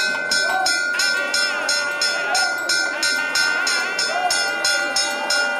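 Temple festival music: fast, even metallic clanging of bells or cymbals, about three strokes a second, over a held drone note and a wavering melody line.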